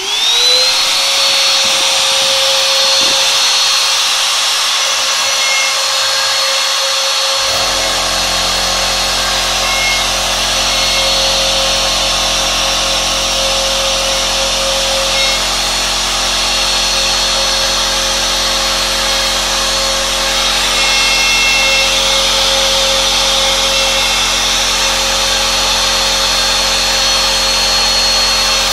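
Bosch Colt 1 hp palm router on a hobby CNC machine spinning up to speed, then running with a steady high whine while it engraves letters into a pine board. A lower hum joins in about seven seconds in.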